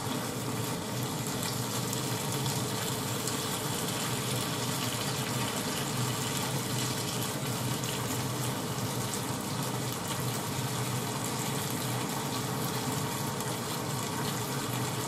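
Pork and sliced onions sizzling steadily in a frying pan as they are stir-fried for ginger pork (shogayaki).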